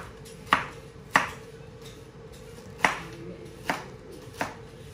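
Chef's knife slicing through fresh pineapple and knocking on the cutting board: five sharp knocks at uneven intervals.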